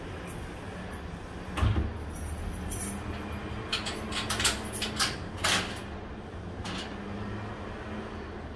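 A metal grille security gate being unlocked and opened: a thump, then a run of sharp metallic rattles and clicks from a key and latch, and a last click. A steady low hum runs underneath.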